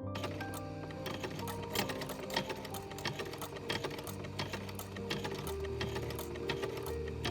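A 1916 Singer hand-crank sewing machine stitching: a quick, steady run of mechanical clicks that cuts in suddenly, with soft piano music underneath.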